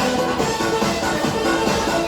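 Upbeat electronic dance music with a steady beat.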